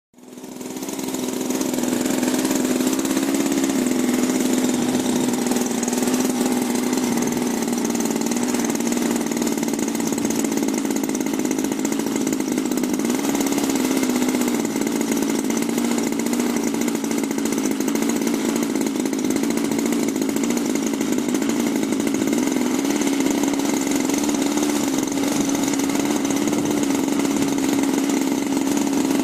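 Christen Eagle biplane's piston engine running at a steady speed, a constant drone with a strong low hum.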